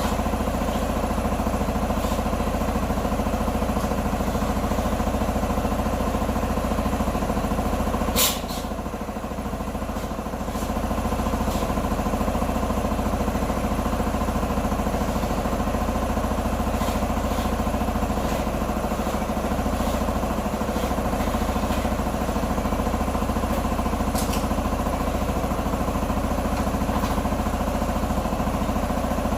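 Q2 125 motorbike engine idling steadily after repair. A sharp click comes about eight seconds in, followed by a short dip in level before the running steadies again.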